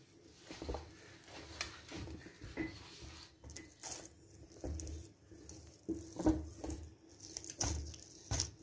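A hand kneading soft, sticky bread dough in a stainless steel bowl: irregular soft pats and squishes as the dough is pressed and pushed against the metal, about one or two strokes a second.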